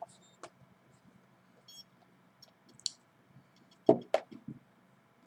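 Scattered light clicks, with two sharper knocks close together about four seconds in, from small objects being handled at close range.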